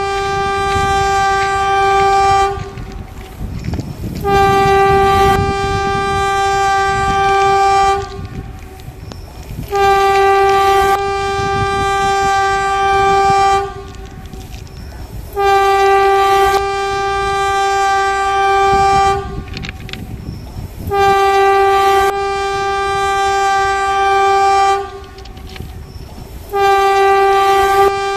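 Train horn sounding in six long blasts of about three seconds each, evenly spaced, each held on one steady pitch.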